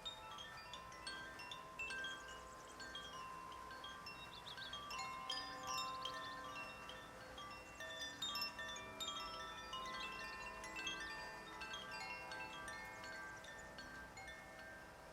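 Wind chimes tinkling: many ringing metallic notes struck at random and overlapping, mostly high-pitched, with a few lower tones sustaining beneath.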